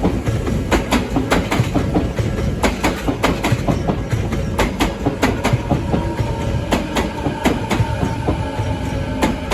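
Train passing close by, its wheels clacking over rail joints in quick irregular pairs over a continuous rumble, with a faint steady tone entering about six seconds in.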